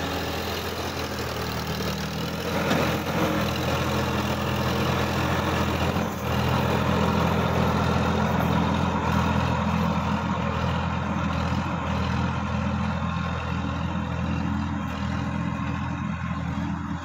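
Sonalika DI-50 RX Supreme tractor's diesel engine running steadily as it pulls a rotavator through the soil.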